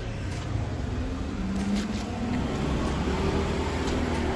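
Road traffic on a city street: a steady low rumble of vehicle engines, with a faint engine hum holding at a few pitches.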